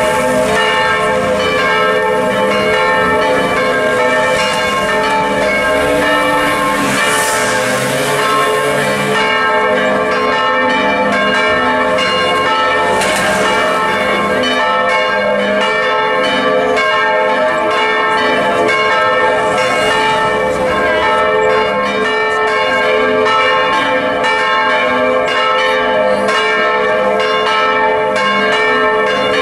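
Several church bells swinging in a belfry and ringing together in a continuous full peal, their overlapping strokes keeping up a steady wash of sustained tones.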